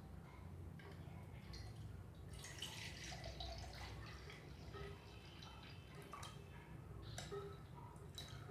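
Faint dripping and splashing of water, loudest a few seconds in, with small clicks and knocks of handling over a low steady hum.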